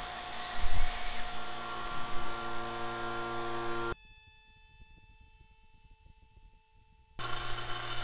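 Electric rotary-vane vacuum pump running steadily, pumping the air out of a bell jar. Its noise drops abruptly to a quiet hum with faint ticking about four seconds in, then returns at full level about three seconds later.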